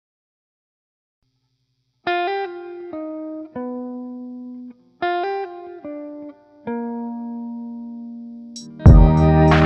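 Background music. After about two seconds of silence, a slow melody of single plucked notes rings out, each note fading away. Near the end, a louder, fuller track with a steady drum beat cuts in.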